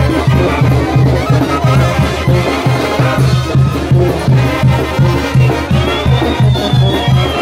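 Village brass band playing a lively dance tune, the low brass marking a steady beat about two and a half times a second.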